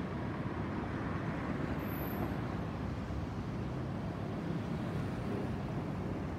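Jet engines of a Boeing 737-800 airliner passing overhead at height: a steady low rumble that holds at an even level.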